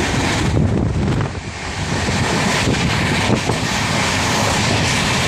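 Running noise of a moving train, a steady rumble and rush, with wind buffeting the microphone; it dips briefly about a second and a half in.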